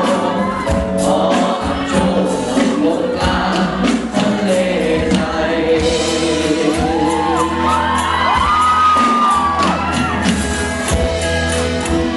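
Music with several voices singing together and a crowd cheering, with a few whoops in the middle.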